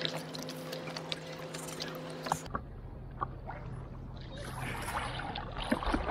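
Water lapping, then splashing and rushing along the side of an inflatable paddleboard as it moves through the water, with scattered sharp clicks. A steady low hum runs under the first half and breaks off suddenly about two and a half seconds in.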